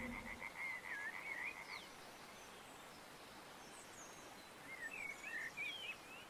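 Faint riverside nature ambience over a soft steady hiss: a pulsed trill for the first couple of seconds, then scattered bird chirps and warbles near the end.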